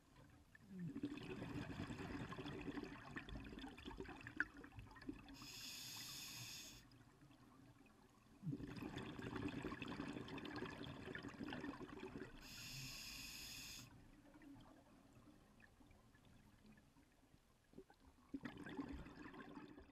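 Scuba diver breathing through a regulator underwater: exhaled bubbles rush out for a few seconds, then a short hiss of inhalation through the regulator, repeating about every seven seconds. Bubble bursts start about a second in, around eight and a half seconds, and again near the end.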